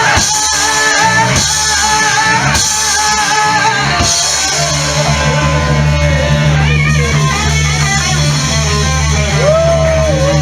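Live blues-rock band playing: electric guitar over bass and drums, with cymbal crashes in the first few seconds. After that a bass note is held, and near the end a guitar note bends up and slides down.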